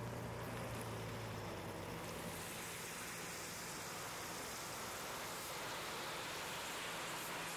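Steady rushing noise, with a low machine hum that fades out about two seconds in.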